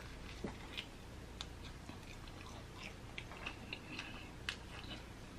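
Close-up chewing of a Flamin' Hot Cheetos-crusted fried chicken wing: faint, scattered crunchy clicks of the coating being bitten and chewed.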